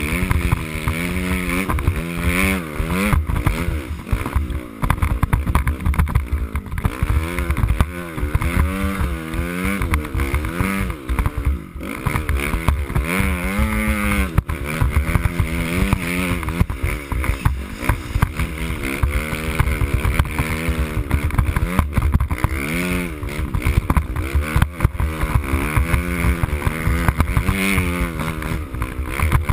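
Dirt bike engine running hard through snow, its pitch rising and falling over and over as the throttle opens and closes.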